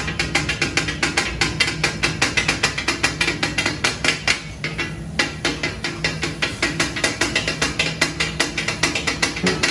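Two metal spatula blades chopping and scraping food on a large flat steel griddle (tawa), clanking rapidly at about five or six strikes a second, with a short pause about halfway through.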